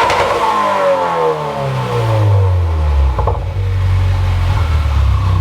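2018 Subaru WRX turbocharged flat-four engine and exhaust, revs falling back from a blip over about three seconds, then settling to a steady idle. A light click comes about three seconds in.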